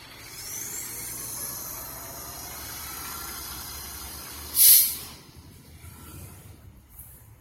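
Fire truck's air brakes releasing with one short, loud hiss about four and a half seconds in, over a low engine idle. A faint rising whine in the first two seconds.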